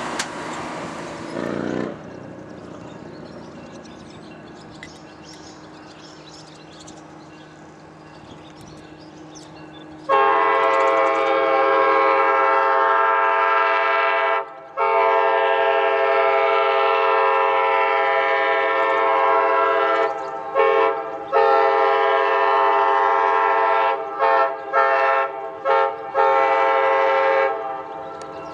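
Diesel passenger train's locomotive air horn sounding a chord in a series of blasts. Two long blasts come first, and several short ones follow near the end. Before it, the locomotive's low steady hum is heard.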